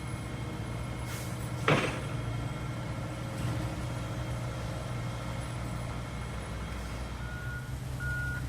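A heavy truck's engine running steadily, with a short loud hiss about two seconds in. Near the end the truck's reversing alarm starts beeping at an even pace.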